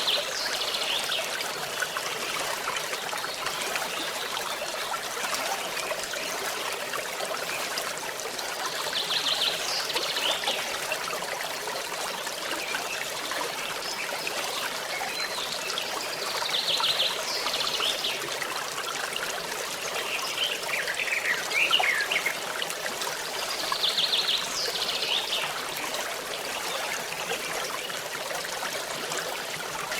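A small stream trickling and babbling steadily. A bird repeats a short, high, trilled call about every few seconds, half a dozen times.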